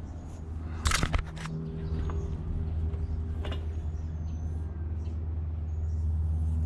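A motor starts and runs with a steady low hum, growing slightly louder. There are a few sharp knocks about a second in.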